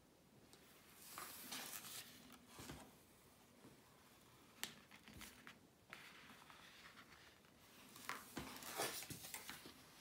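Soft paper rustling and scraping as a white paper pop-up card is handled and folded shut, its cut-paper mechanisms collapsing flat, with a single sharp click near the middle.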